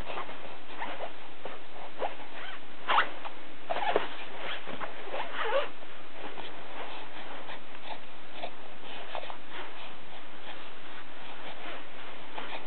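A baby's quick breathy sniffs and snuffles, the sharpest about three, four and five and a half seconds in, over a steady hiss.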